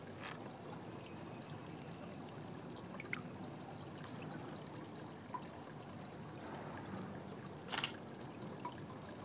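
Faint, steady swimming-pool water ambience, water lapping and trickling at the pool edge, with a few small clicks, the sharpest near the end.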